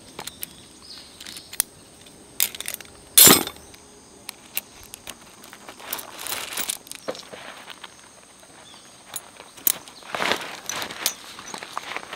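Camping gear being handled on gravel: metal carabiners clinking, tarp fabric rustling and gravel crunching underfoot and under hand. The sounds come in scattered bursts, the loudest about three seconds in.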